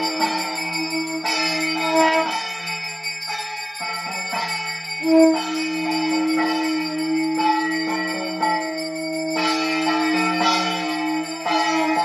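Music with bells ringing throughout, sustained notes and repeated bell strikes that change pitch several times.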